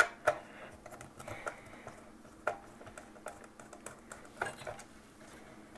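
Scattered light clicks and ticks of a hand screwdriver turning out a screw that holds the circuit board in a plastic portable radio case, with the sharpest click right at the start.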